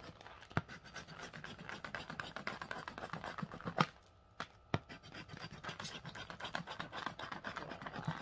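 A coin scratching the latex coating off a scratch-off lottery ticket in quick, repeated strokes. About halfway through there is a brief lull with a few sharp taps before the scratching resumes.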